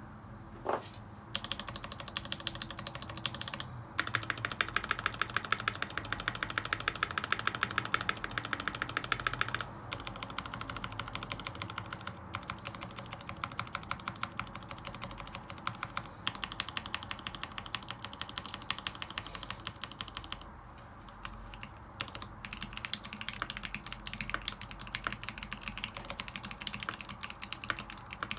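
Continuous fast typing on a TX87SE mechanical keyboard with Tribosys 3204-lubed Gateron Zealios V2 tactile switches, lubed stabilizers and a brass plate: a dense run of keystroke clacks. It is loudest and fastest over a stretch early on, broken by brief stops and one longer pause about three quarters of the way through.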